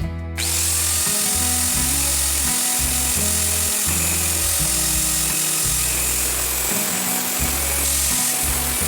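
Electric angle grinder running steadily, its abrasive disc grinding steel as a drill bit is sharpened on it, coming in sharply just after the start. Background music with a repeating bass line plays underneath.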